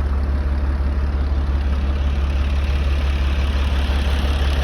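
Semi-truck diesel engine running, a steady low drone with no change in pitch.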